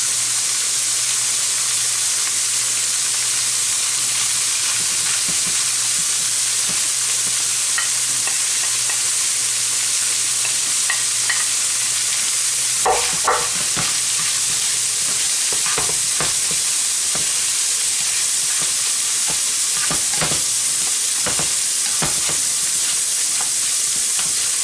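Canned salmon frying in a pan of hot oil with sautéed onion and garlic, sizzling steadily. From about halfway, a spatula knocks and scrapes against the pan as the mixture is stirred.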